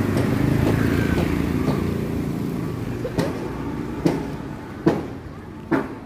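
A motor vehicle's engine running past and fading away over the first few seconds. From about halfway in, a regular series of sharp taps, a little under one a second.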